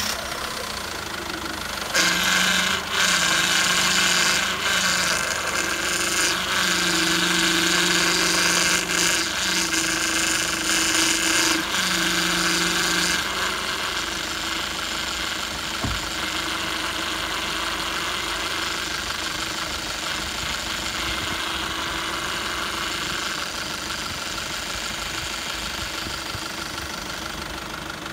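SsangYong engine idling just after a start, with its power steering pump running. From about two seconds in, a louder hissing whine with steady tones rides over the idle for about eleven seconds, breaking off briefly a few times, then drops away to the plain steady idle. One sharp tick is heard about halfway through.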